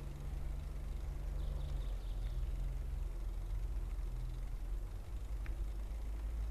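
Stone train of large hopper wagons rolling past slowly, a steady low rumble of wheels on rail.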